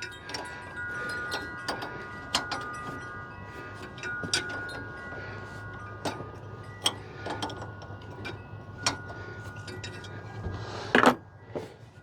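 Metal-on-metal clinks and taps with a ringing tone: a line-wrench crow's foot working a stubborn power steering line fitting on a steering box. The clinks are scattered, with a louder cluster near the end.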